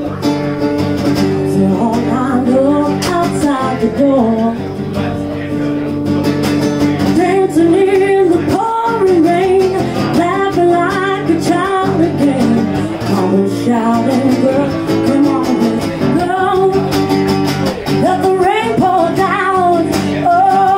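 A woman singing a song to acoustic guitar accompaniment.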